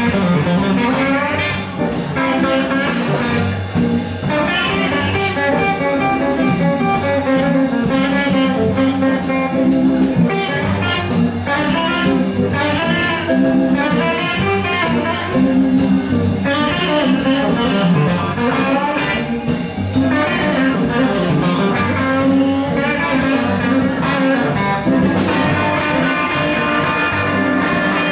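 Live electric blues band playing, electric guitar to the fore over drums with a steady beat.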